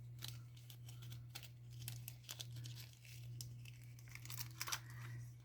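Plastic packaging of nail decal sheets being handled, crinkling with many small scattered clicks and crackles, over a steady low hum.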